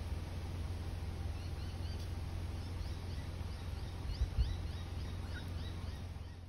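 Bush ambience: small birds calling in short, quick upward-sliding chirps, over a steady low rumble, with two dull thumps a little past four seconds in.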